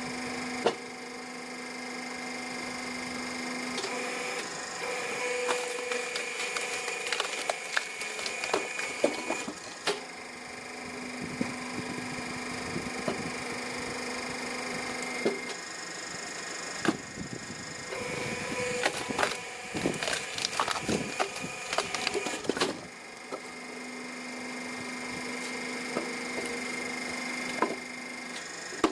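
Excavator-mounted SplitX 450 hydraulic log splitter working through logs. Its blade presses in and the wood cracks and splinters in dense runs of sharp snaps, alternating every few seconds with stretches of a steady machine hum from the hydraulics.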